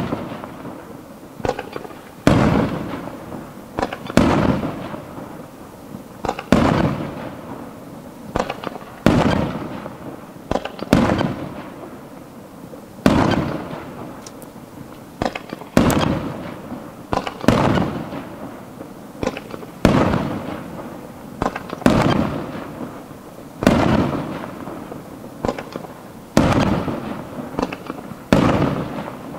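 Aerial firework shells bursting one after another, a sharp boom about every one and a half to two seconds, each trailing off in a rolling echo.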